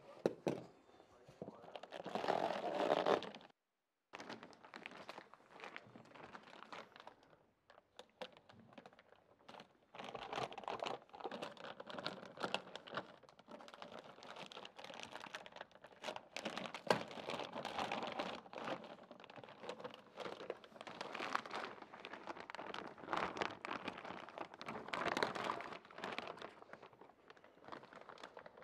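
Clear plastic packing bag crinkling and rustling in irregular bursts as an electronics unit is unwrapped by hand. In the first few seconds it is cardboard box flaps and packing being handled, with a short break after about three and a half seconds.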